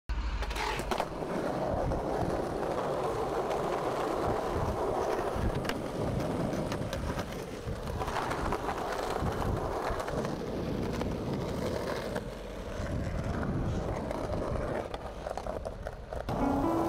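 Skateboard wheels rolling on rough pavement, a steady rumble, with a few sharp clacks of the board.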